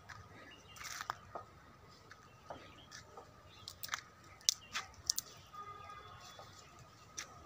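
Dry grass stems and twigs crackling and snapping irregularly as someone pushes on foot through dry scrub.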